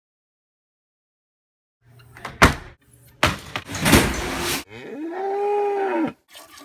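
A couple of seconds of silence, then metallic clattering and bangs from a stainless-steel commercial dishwasher. A cow then moos once, a long call that rises and falls in pitch.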